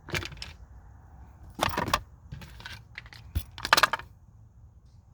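Tools being handled and shifted inside a tool bag, clinking and rattling in several short bursts, with one sharp click about three and a half seconds in.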